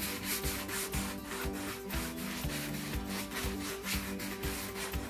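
Round wax brush scrubbing back and forth over chalk-painted upholstery fabric, working in furniture wax with a rough, scratchy rubbing that rises and falls with each stroke. Background music with a steady beat plays underneath.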